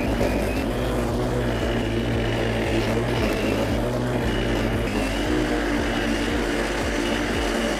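WORX WG779E.2 40V cordless lawn mower running as it is pushed across grass: a steady drone from the electric motor and spinning blade.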